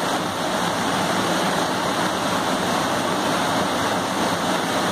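Floodwater rushing steadily across a submerged road bridge and pouring over its side, a loud, even roar.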